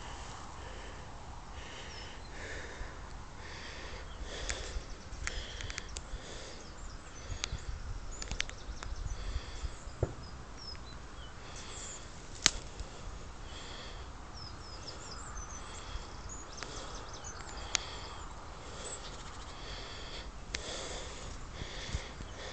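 English setter sniffing in short, repeated soft bursts while holding point on a hidden pheasant, with faint small-bird chirps and a few sharp clicks, one louder about halfway through.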